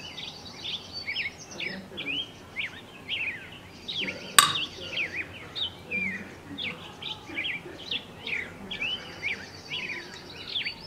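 Many small birds chirping and twittering without pause, short quick chirps over a fainter high trill. A single sharp click about four and a half seconds in.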